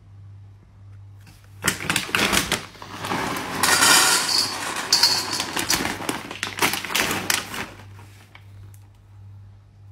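Dry dog kibble poured from a bag into a stainless steel bowl: a dense rattle of pellets hitting the metal and each other, starting about two seconds in and running for about six seconds before it stops.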